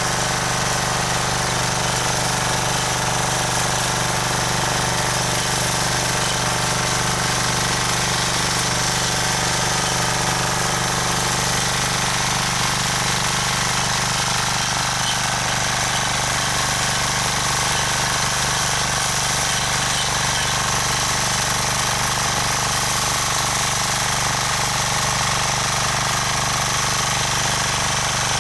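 Rotakt walk-behind rotary tiller's engine running steadily under load as it tills soil, at an even, unchanging pitch.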